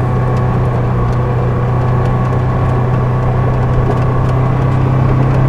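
Engine of a small off-road utility vehicle running steadily while under way, a constant hum with no change in speed.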